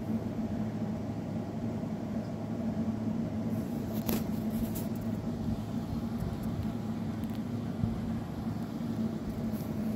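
Domestic cat purring steadily, close to the microphone, with a brief rustle about four seconds in.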